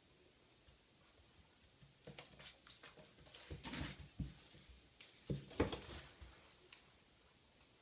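A kitten playing in an empty bathtub, its paws and a small toy knocking and scuffing on the tub's surface in a series of light knocks, louder about halfway through and again about three-quarters of the way through.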